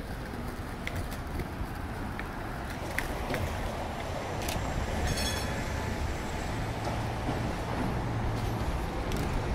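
Vintage PCC streetcar approaching along its rails, its rumble rising slowly over steady street traffic, with a brief high ringing tone about five seconds in.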